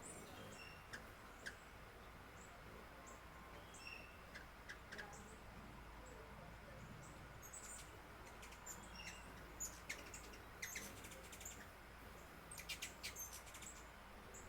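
Wild birds chirping faintly: scattered short, high chirps, with quick runs of rapid chirps twice in the second half, over a faint steady background hiss.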